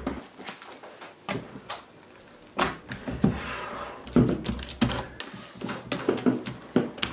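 Hands laying buttery dough into a metal oven tray and pressing it out flat: a series of soft knocks and thuds, with the rub of palms on the dough between them.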